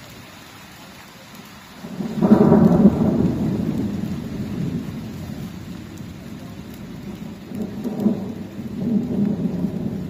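A roll of thunder that breaks about two seconds in, loud at first and fading slowly, with a second rumble near the end, over steady falling rain.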